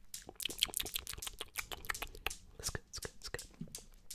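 Rapid, irregular small clicks and crackles close to the microphone.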